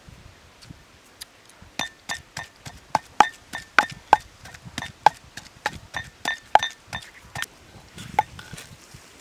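Wooden pestle pounding chili paste in an earthenware mortar: a steady run of sharp knocks, about three a second, each with a short ring, starting about two seconds in.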